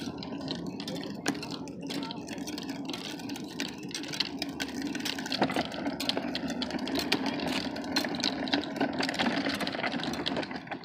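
Hard plastic wheels of a rolling cooler rumbling steadily over a concrete path, with scattered clicks and rattles.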